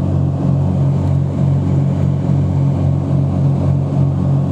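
Light aircraft's engine and propeller droning steadily, heard inside the cabin, with a gentle swelling and fading about twice a second.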